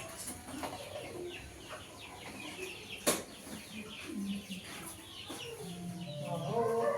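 Busy high chirping of birds, with one sharp knock about three seconds in and a louder pitched call building near the end.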